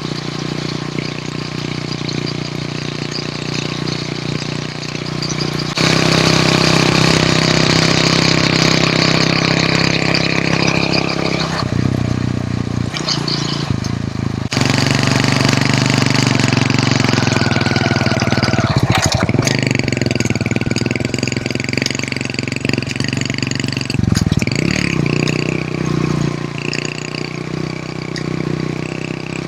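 Hero Honda CD100's small single-cylinder four-stroke engine running while being ridden, its note steady but changing abruptly several times, with a brief swoop in pitch about two-thirds through.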